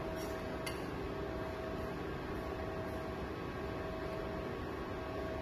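Steady workshop hum and hiss, with a faint tone that cuts in and out about once a second, and one light click less than a second in.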